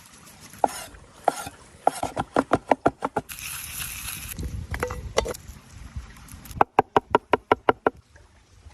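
Two quick runs of sharp knocks at about five a second, with a short burst of hiss between them.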